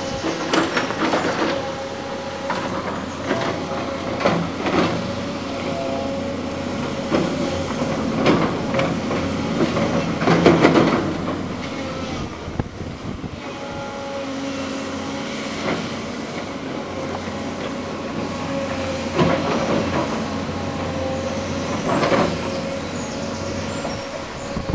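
Tracked hydraulic excavator working, its diesel engine running with a steady whine, with repeated knocks and clanks from the tracks and bucket on rubble, loudest about ten seconds in.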